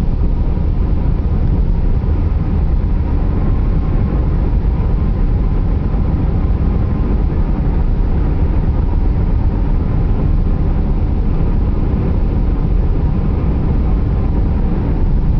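Car driving on an interstate highway: a steady low rumble of tyres and engine with no change in pace.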